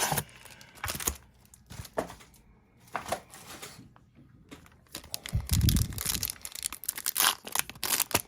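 Packaging of a Topps Chrome baseball card blaster box being torn open and crinkled. A few short rips come about a second apart, then a longer, louder stretch of tearing and rustling with a dull knock about five and a half seconds in.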